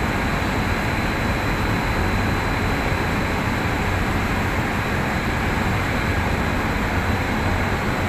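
Steady machinery drone of a ship's deck crane as its winch lowers a clamshell grab into the cargo hold, with a faint steady high whine over a low rumble.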